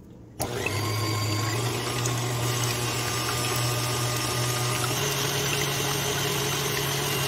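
KitchenAid Classic stand mixer running with its wire whip, whipping eggs, vegetable oil and vanilla into a froth. The motor starts about half a second in and then runs steadily with a low hum.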